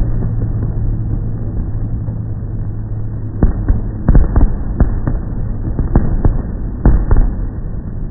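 Fireworks going off: irregular bangs, some in quick clusters about three and a half, four, six and seven seconds in, over a steady low rumble.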